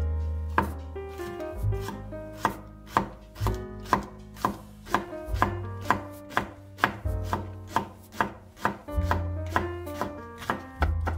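Chef's knife slicing a green onion on a wooden cutting board: steady, even chops about two a second, each a sharp knock of the blade against the board.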